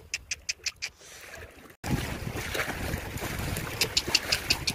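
A run of quick, light clicks, then about two seconds in a sudden switch to wind rushing over the microphone with the wash of sea surf beneath it.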